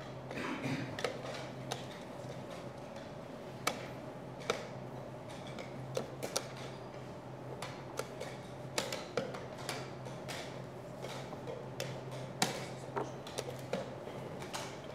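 Irregular sharp clicks of wooden chess pieces being set down and chess clock buttons being pressed in blitz play, over a steady low hum.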